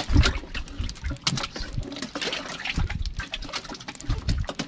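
Wet fish being handled and shifted on the floor of a small boat: irregular slaps, knocks and splashes of water.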